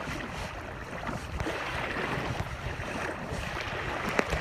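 Fast-moving floodwater rushing across a street: a steady rush of water, with wind buffeting the phone's microphone.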